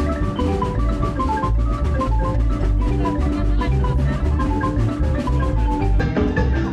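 Live marimba band playing: quick mallet notes on a large wooden marimba over a drum kit's steady beat. About six seconds in, the sound cuts to another marimba performance, duller in tone.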